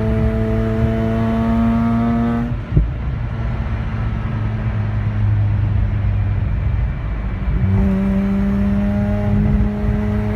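Mazda RX-8's two-rotor 13B Renesis rotary engine pulling with a slowly rising note. About two and a half seconds in, the note breaks off abruptly with a thump and gives way to a rough rumble for about five seconds. Then the note picks up and rises again. This is the stumble under acceleration that the owner takes for a misfire.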